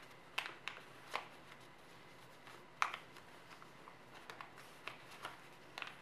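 A sheet of origami paper crackling as it is folded and creased by hand: a series of short, sharp crackles at irregular intervals, the loudest a little under three seconds in.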